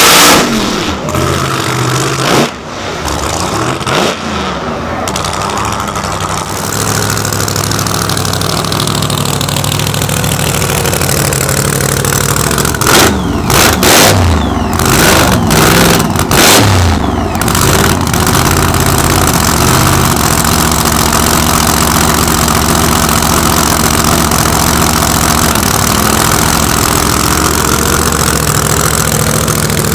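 Supercharged, fuel-injected big-block Chevy V8 of an all-wheel-drive drag truck. Its full-throttle burnout cuts off about a second in, and the engine drops to idle. It is revved in a few quick blips about halfway through, then idles steadily.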